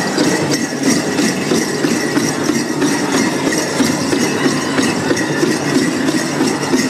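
Powwow drum group drumming and singing for the grass dance, recorded loud and blurred into a dense wash in a large arena.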